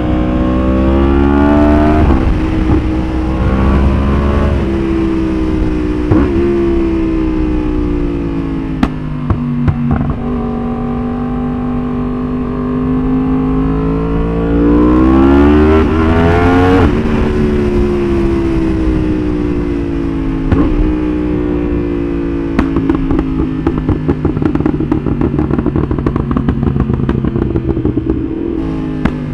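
Yamaha R1's inline-four motorcycle engine accelerating hard through the gears: the pitch climbs and drops sharply at each quick upshift, with one long pull to high revs. It then comes off the throttle, and in the later half the exhaust crackles and pops repeatedly over the falling revs, from a pop-and-bang ECU tune.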